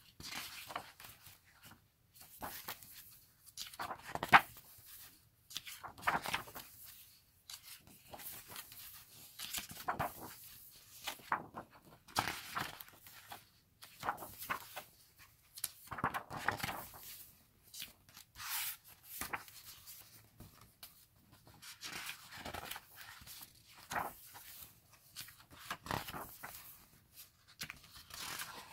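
Glossy pages of a K-pop album photobook being turned one after another, each turn a short paper rustle, about one every one to two seconds, with a sharper snap about four seconds in.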